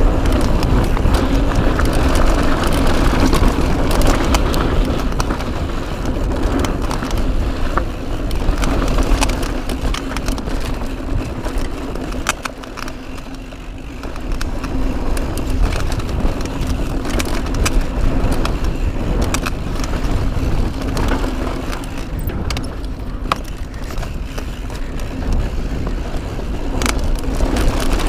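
Mountain bike descending a dry dirt trail: steady wind rushing over the camera microphone and tyres rolling on loose dirt and gravel, with scattered clicks and rattles from the bike over bumps. It eases briefly about halfway.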